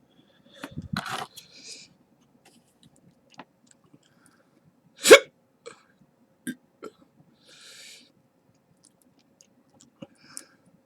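A single sharp hiccup about five seconds in, much the loudest sound, from a person who has just eaten a ghost pepper. Short breathy bursts come before and after it, and faint small clicks come from a lock pick working a Master Lock 140 padlock.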